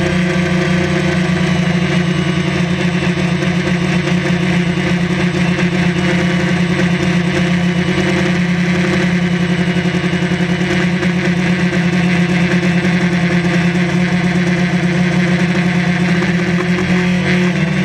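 Electric motors and propellers of a small camera drone in flight, heard from the camera riding on it: a steady hum with a strong low tone and fainter higher ones.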